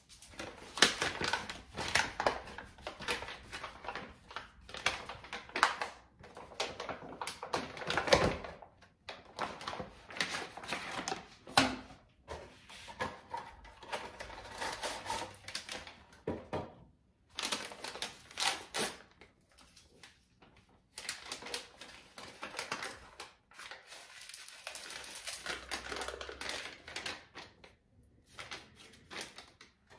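Seasonings being shaken from their containers onto raw ground deer meat: bursts of rapid clicking and rattling, broken by short pauses.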